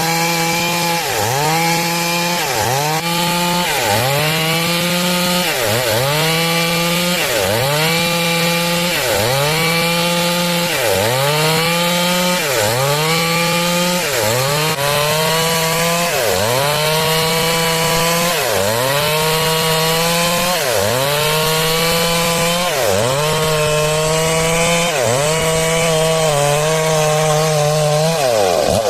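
Stihl MS 382 two-stroke chainsaw cutting through wood at high revs. Its pitch dips sharply under load and recovers about every second and a half, in a steady rhythm.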